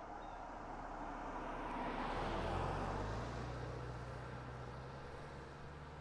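A car driving past: its tyre and engine noise swells to its loudest about two and a half seconds in, then fades away as it recedes, leaving a low engine hum.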